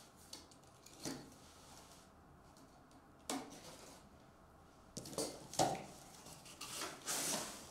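Box cutter slitting the packing tape on a cardboard shipping case, heard as a few short scraping rips. Near the end comes a longer rip as the cardboard side of the case is pulled open.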